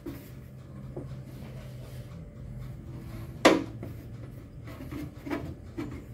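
Hands handling the indoor blower fan motor of a ceiling air conditioner, with one sharp knock about three and a half seconds in and a few lighter knocks near the end, over a steady low hum.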